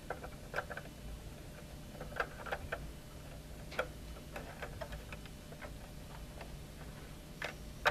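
Faint, scattered small clicks and ticks of fingers handling thin wires at a plastic screw terminal block on an irrigation controller's circuit board, a handful spread irregularly over the seconds, over a low steady hum.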